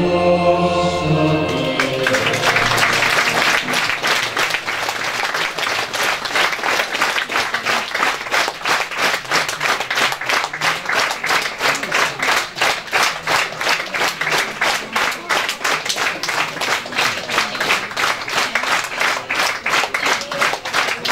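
Choral music ends about two seconds in and an audience breaks into applause, which settles into even, rhythmic clapping in unison, about two claps a second.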